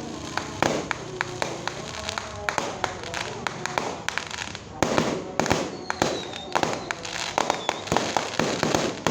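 Fireworks going off: a rapid, dense series of sharp bangs and crackling pops.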